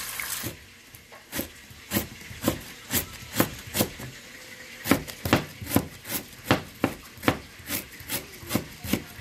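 Rhythmic scraping strokes in a kitchen, a little over two a second, with a short pause about four seconds in. Frying hiss is heard at the start and drops away within the first half second.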